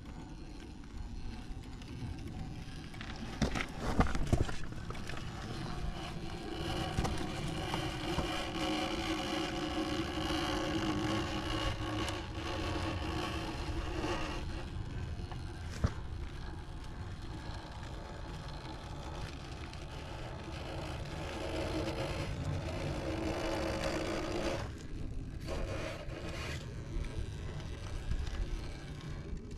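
A radio-controlled truck running on its tyres: a steady electric-motor whine that holds for several seconds twice, over scraping tyre noise, with sharp knocks about four seconds in and again around sixteen seconds in.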